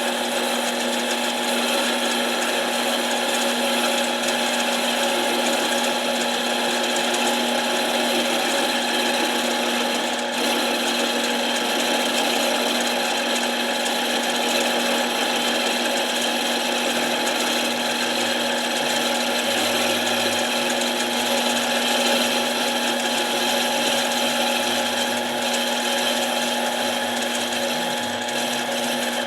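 Harbor Freight mini lathe running steadily, its motor giving a constant whine while a tool works a metal impact-wrench part with a scraping sound. There is a brief dip about ten seconds in.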